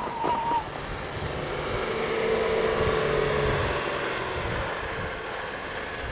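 Off-road 4x4's engine running as it drives up a sand dune, with wind on the microphone.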